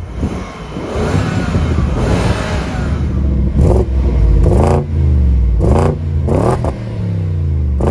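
BMW 645Ci's stock 4.4-litre V8 and exhaust revving: a longer climb in revs, then about five quick throttle blips, each sharply rising and falling back.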